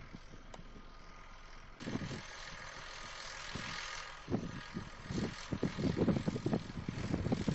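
Tractor engine running, an uneven low rumble over hiss that grows louder in the second half.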